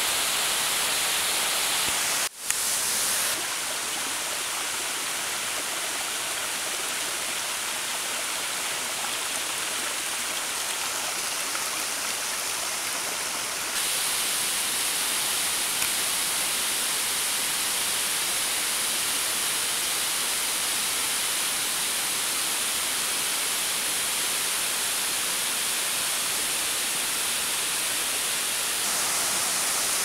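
Steady rush of a waterfall, falling water hissing without a break apart from a brief drop-out about two seconds in. The tone shifts suddenly a few times where the recording is cut.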